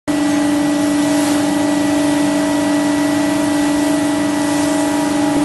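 Electric spice pulverizer machine running at speed, a steady loud hum with a strong constant tone over an even rushing noise.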